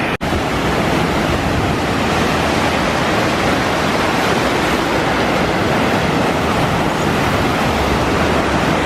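Loud, steady rush of ocean surf mixed with wind on the microphone, cutting out for an instant just after the start.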